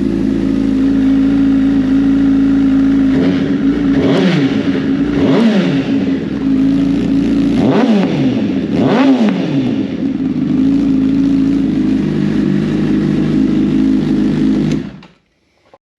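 Engine of a basically stock 2022 vehicle idling, revved four times, each rev rising and falling in pitch, then cutting off suddenly near the end.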